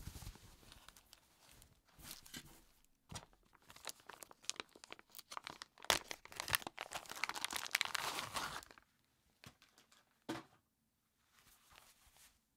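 Plastic packaging bag crinkling and tearing as it is pulled open: a dense crackle lasting several seconds. Softer fabric rustling from handling a knit sleeve comes before it, and a few quiet rustles after.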